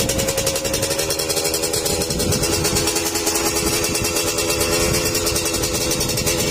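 Dirt bike engine running loudly at steady revs, with a rapid, even firing pulse.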